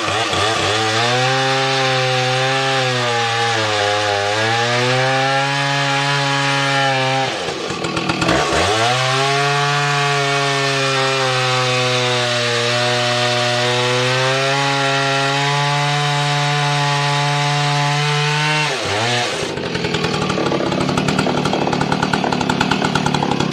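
Large Husqvarna two-stroke chainsaw running at high revs, cutting into wood. Its pitch sags under the load and bogs down hard about eight seconds in before picking back up. Near the end it drops off to a rough, uneven lower running.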